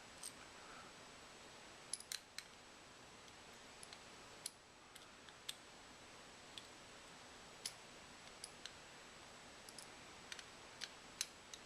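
Faint, scattered light metallic clicks and ticks, about a dozen spread irregularly, as a small screwdriver snugs up the tiny screws holding a dial caliper's mechanism.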